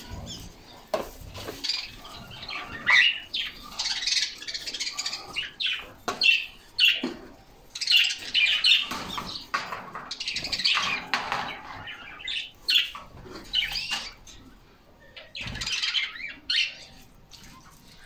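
A cage full of canaries chirping and calling, many birds at once, with some wing fluttering.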